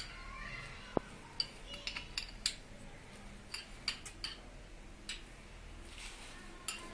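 Small metal plumbing fittings and a spanner clicking and clinking against each other as they are handled, about ten separate clicks with the sharpest about a second in.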